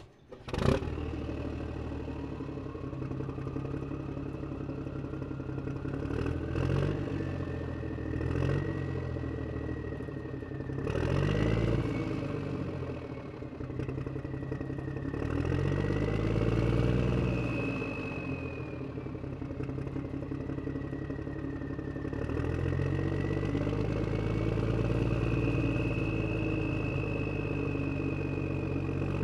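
Miniature excavator working: its motors whine, gliding up and down in pitch, over a steady engine-like drone that rises in pitch several times as the machine moves. There is a sharp click about a second in.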